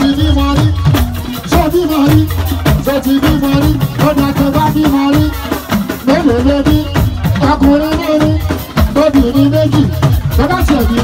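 Live amplified music: a man sings into a microphone over a steady beat of drums and shakers.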